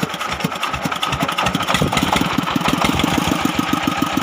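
Diesel engine starting: uneven firing pulses for about the first second, then settling into a steady, fast, even chugging beat.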